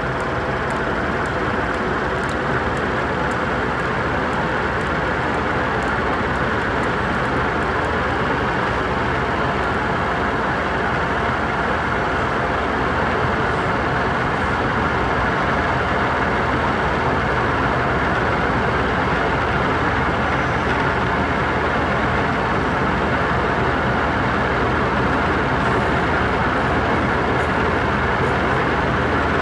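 Electric fan running steadily at full speed: a constant rush of air over a faint, even motor hum.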